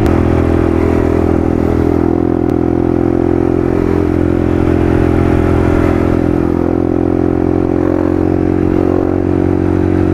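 Motorcycle engine running at a steady, even speed while cruising, with road and wind noise under it.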